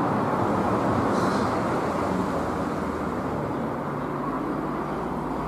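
Steady outdoor background rumble with no clear single source, and a faint brief hiss about a second in.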